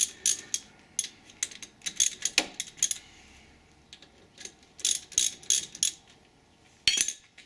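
Hand ratchet wrench clicking as it backs out a brake caliper retaining bolt, in two quick runs of clicks with a short pause between. A single sharp knock comes near the end.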